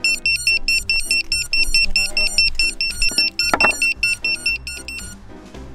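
FPV racing quadcopter's buzzer beeping in a rapid, regular train of high beeps, the alarm that sounds after the drone has lost its signal and dropped in failsafe; the beeping cuts off about five seconds in. Background music runs underneath.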